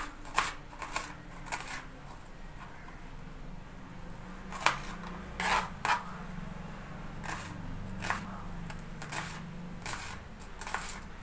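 Kitchen knife slicing small onions on a plastic cutting board: a dozen or so sharp taps of the blade hitting the board, irregularly spaced about half a second to a second apart.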